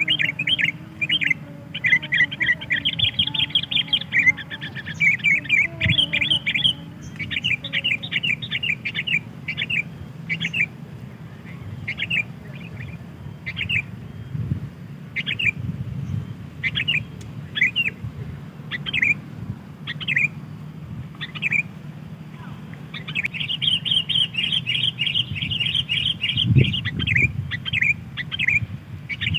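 Sooty-headed bulbul calls: short, sharp chirps repeated about once or twice a second, with fast chattering runs through the first few seconds and again near the end.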